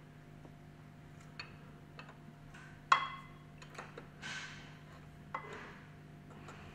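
Metal spanner clinking against a threaded brass pipe fitting on the pump casing as the fitting is tightened: a few light clicks, one sharp ringing clank about three seconds in, and a short scrape soon after. A faint steady hum runs underneath.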